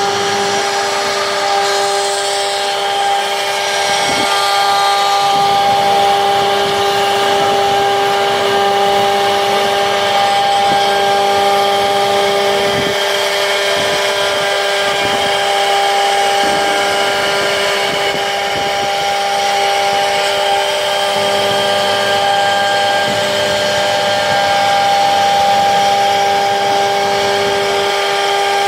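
CNC router spindle running at a steady speed: a constant whine over a rough, hissing noise.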